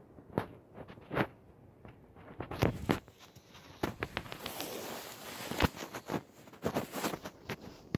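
Footsteps crunching through snow at an irregular walking pace, with a couple of seconds of steady rustling midway.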